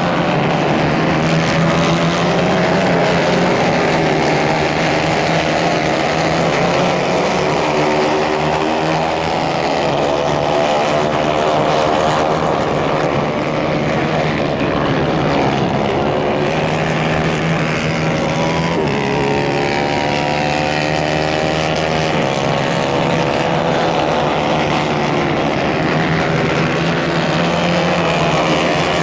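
Several racing kart engines running hard, their overlapping pitches repeatedly rising and falling as the karts accelerate and ease off.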